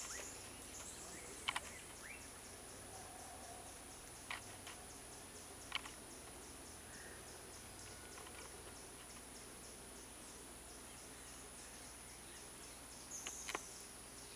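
Tropical forest insects: a steady high-pitched drone with a fast, even ticking chirp over it, broken by a few short, sharp clicks or chips, twice near the start and once near the end.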